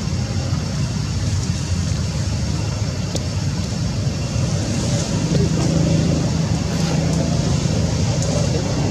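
Steady low rumble of background vehicle noise, with a few faint clicks.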